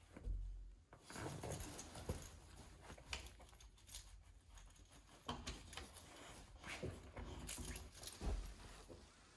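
Labrador puppy tussling with a knotted cloth toy on a cushioned dog bed: irregular rustling, scuffling and mouthing noises as she works at the knot, with a couple of dull thumps, one just after the start and one near the end.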